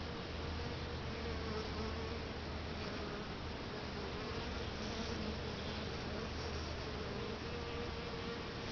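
Honeybees buzzing as they fly about and crawl into the entrance holes of a bait hive: a steady drone that wavers slightly in pitch.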